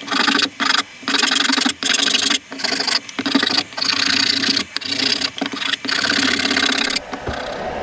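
Hand file rasping across the end of a wooden axe handle in repeated push strokes, a little over one a second, stopping about seven seconds in.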